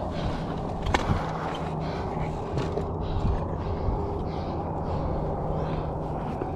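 Mountain bike going down on a rocky trail: a sharp knock about a second in, then scattered knocks and rattles as the bike comes to rest upside down. A steady low hum runs underneath.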